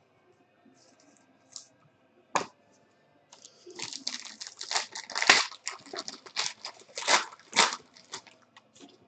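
A few light clicks, then a trading-card pack's foil wrapper being torn open and crinkled by hand. From about three seconds in there is a run of sharp crackling that lasts several seconds.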